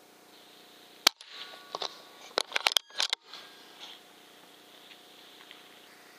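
Weihrauch HW100 .22 pre-charged air rifle firing: one sharp crack about a second in, then a quick cluster of cracks and clicks between about two and three seconds in. A faint steady whine runs underneath.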